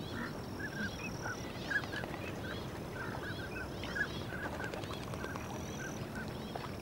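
A flock of ducks on open water calling: many short overlapping calls, several a second, over a steady background hiss.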